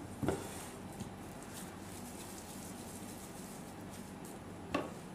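Hands squeezing and scooping raw chicken mince in an enamel bowl, with two short soft knocks, one just after the start and one near the end.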